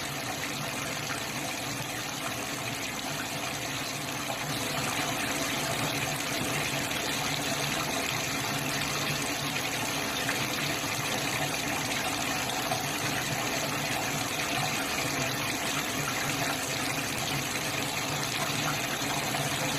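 Water pouring in a steady stream from an open kitchen tap into a stainless steel sink, getting a little louder about four seconds in. The supply pipe is draining out after the tank valve has been shut.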